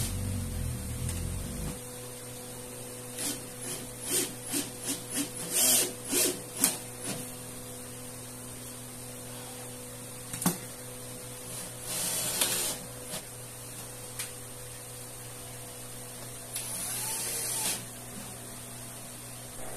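Wooden lid frame of a hamster cage being handled and fitted onto the cage: a run of light knocks and taps, a sharp click, and two brief scraping noises, over a steady low hum.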